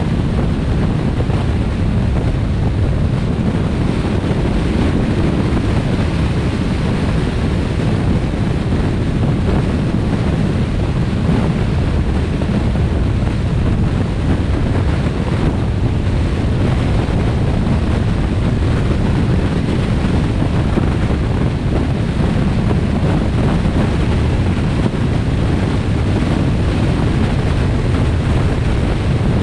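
Steady wind rushing over the microphone of a camera on a moving car, mixed with continuous road noise at highway speed.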